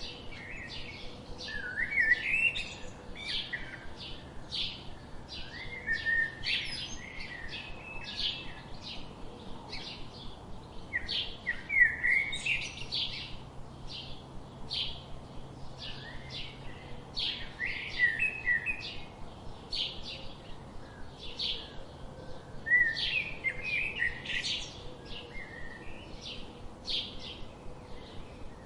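Small birds chirping: a steady run of short, high chirps about two a second, broken every five or six seconds by a louder, lower warbled phrase.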